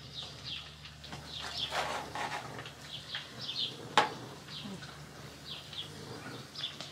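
Small birds chirping repeatedly, short high notes that fall in pitch, several a second, over a steady low hum; a single sharp click about four seconds in.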